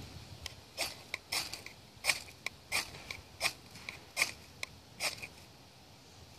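Knife blade scraped down a ferrocerium (ferro) rod over and over to throw sparks onto wood shavings: about a dozen short, sharp rasping strokes, the strongest roughly every 0.7 s, stopping about a second before the end. The tinder has not caught yet.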